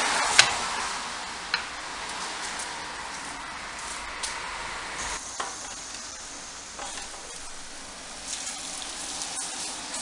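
Small metal clicks and scrapes of door hardware being worked, a screwdriver turning the screws of a brass letter plate, over a steady hiss. The loudest sound is a single sharp click about half a second in, with a few smaller clicks after it.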